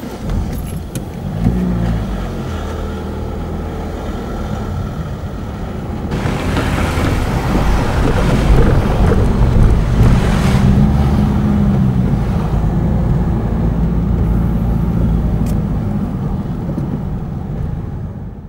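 A car pulling away and driving on: a low engine hum joined by tyre and road noise that grows louder about six seconds in, then fades out at the end.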